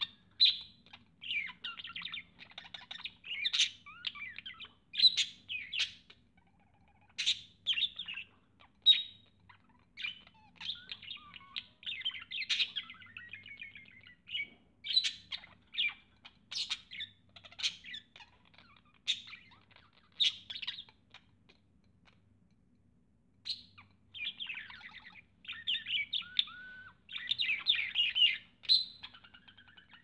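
Budgerigar chirping and warbling at its reflection in a mirror, in quick runs of short calls. The calls stop for about two seconds past the middle, then come back in a denser run near the end.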